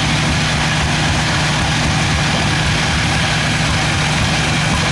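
Sawmill machinery running steadily with a constant low drone and no change in speed.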